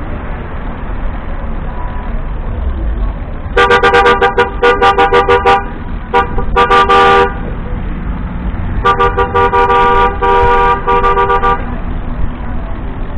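A horn sounding in rapid strings of short beeps, about five or six a second. The first run starts a few seconds in, a few more beeps follow, and a second run comes near the end, over steady rumbling road and wind noise from riding.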